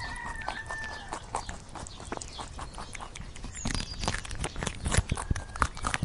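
Young rabbits shuffling in dry straw: scattered rustling and crackling clicks. At the start a pitched animal call of about a second sounds over it, and a shorter, weaker one comes near the end.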